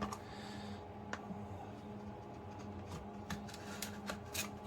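Light, irregular clicks and rubbing from handling a padlock in its plastic retail package, about eight sharp clicks over a faint steady hum.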